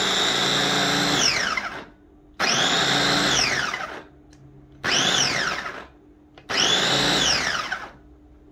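WN Great 600-watt electric food chopper running empty, pulsed from its top button: the motor whines at a steady pitch, then spins down with a falling whine each time the button is released, four times, the runs lasting from under a second to a few seconds.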